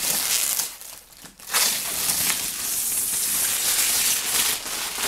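Clear plastic protective film being peeled off a PC tower case, crinkling and crackling; a short lull about a second in, then steady crinkling with many small crackles.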